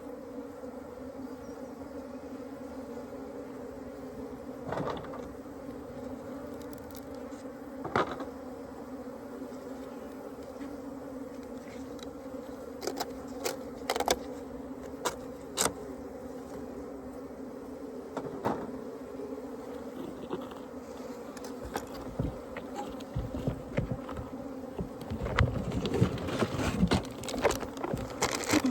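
Honeybee colony buzzing steadily, a continuous low hum. Scattered sharp clicks and knocks come through it, growing busier near the end.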